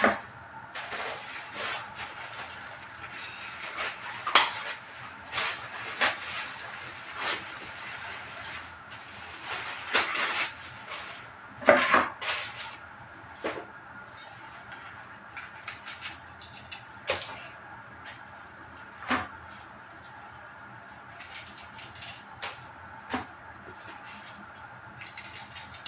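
Gloved hands handling bok choy and kitchenware at a kitchen sink: scattered knocks, taps and clatter, most frequent in the first half with a loud cluster about twelve seconds in, sparser after that.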